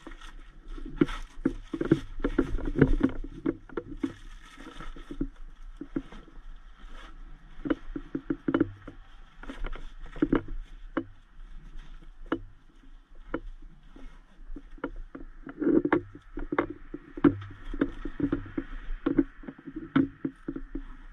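A nylon medical kit bag being handled and closed up: rustling with many scattered sharp clicks and knocks from its fittings and contents.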